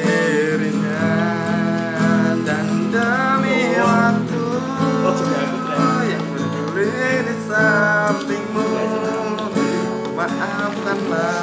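Acoustic guitar strummed in a steady rhythm of chords, with a man's voice singing along at times.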